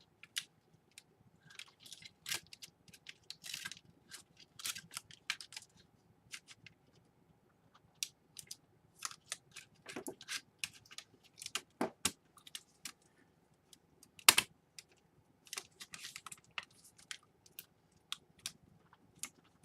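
Irregular small clicks, taps and brief scrapes of laptop parts being handled and fitted together, with one sharper knock about two-thirds of the way through.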